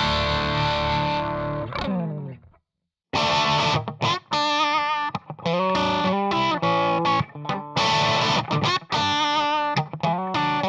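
Crunch-distorted electric guitar, a Fender Stratocaster through a Marshall JCM800 amp profile and a Celestion cabinet impulse response, playing a rock riff. A held chord rings and fades. After a short silence the loop starts again with choppy chord stabs and ringing notes, now through an Alnico Blue 1x12 closed-back cab.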